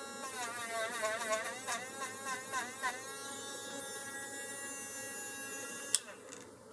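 Yellow handheld mini rotary tool spinning a brass wire wheel against a small brass lock part. Its motor whine wavers and dips in pitch under load during the first three seconds, then runs steady and stops with a sharp click about six seconds in. The owner says the tool's bearings are starting to go.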